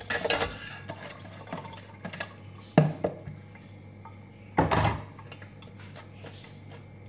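Rinsing at a kitchen sink: water splashing and a stainless steel colander clattering against the sink, with sharp knocks about three seconds and nearly five seconds in.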